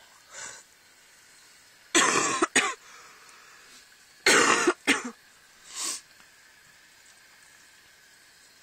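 A person coughing close to the microphone: a loud double cough about two seconds in and another about four and a half seconds in, with a softer cough just before six seconds.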